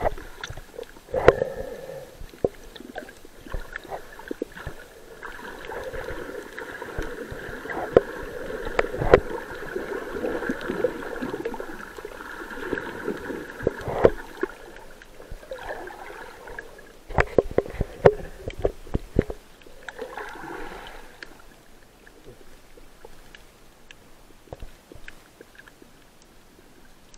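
Muffled underwater sound picked up by a camera just below the surface: water gurgling and sloshing, with scattered knocks and clicks. A steady hum rises about five seconds in and fades away after about twenty seconds.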